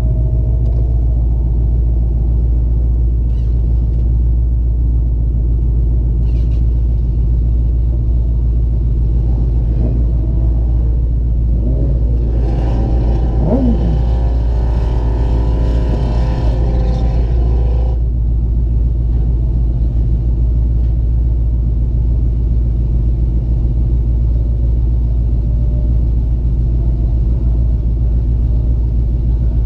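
Ford Mustang GT's V8 idling with a steady low rumble, heard from inside the cabin. About halfway through, another engine revs up and down with a rushing noise for about six seconds.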